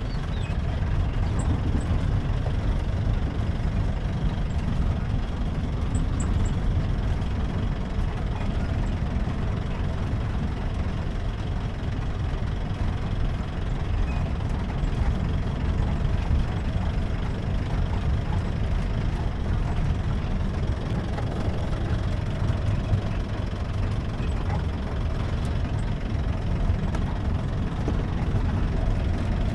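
Jeep engine running steadily while the jeep drives, a continuous low rumble.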